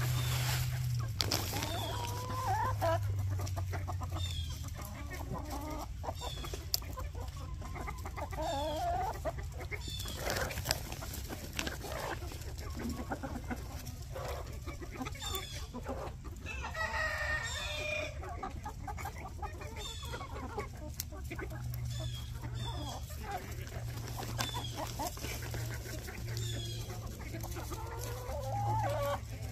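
A flock of free-range chickens, many of them black Hmong chickens, clucks and calls continuously. A rooster crows once midway through, the longest and loudest call.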